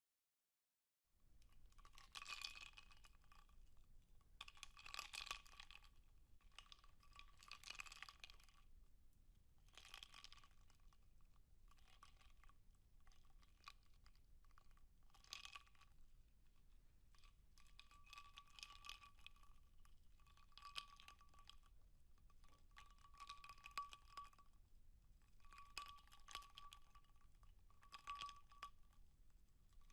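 Ice cubes clinking and rattling in a glass as it is swirled, in repeated bursts every two to three seconds, with the glass ringing faintly between them. Starts about a second in.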